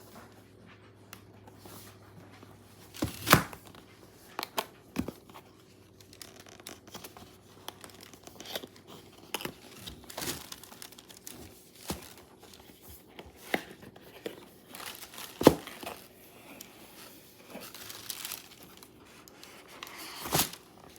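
Paper wrapping being handled and torn open: irregular crinkling and rustling with short tearing sounds, the sharpest about three seconds in and again near fifteen seconds.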